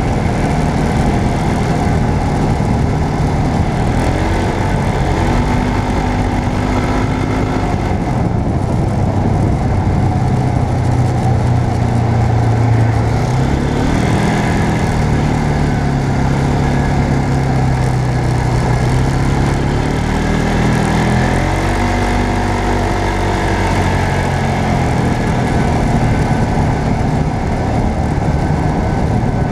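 A motor vehicle's engine running while under way, its pitch rising and falling as the speed changes, over a steady rushing wind and road noise.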